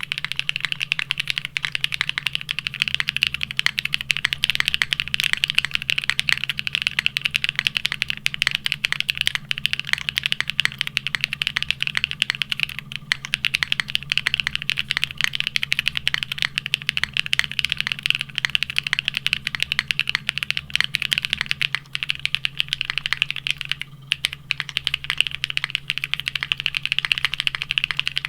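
Fast, continuous typing on a Neo65 mechanical keyboard built plateless and foamless, fitted with ABS keycaps. There are short lulls about 13 and 24 seconds in, and a steady low hum runs underneath.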